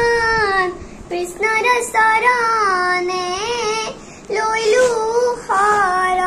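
A young girl singing an Assamese devotional hymn to Krishna, unaccompanied. She holds long notes with slow bends in pitch, broken by two short gaps.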